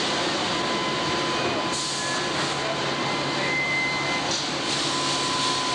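Steady, loud din of paper mill machinery: a dense roar with a thin steady whine, joined by a lower hum about two seconds in.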